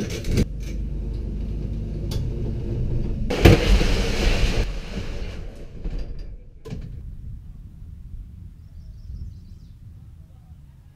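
Rumbling and clattering of an enclosed cargo trailer's rear door being worked and gear being moved inside the trailer, with a loud scraping rush about three and a half seconds in and a sharp knock near seven seconds, after which it falls quieter.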